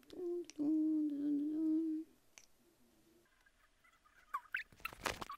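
A low, drawn-out humming voice lasting about two seconds, wavering a little in pitch. A short rough hissing burst follows near the end.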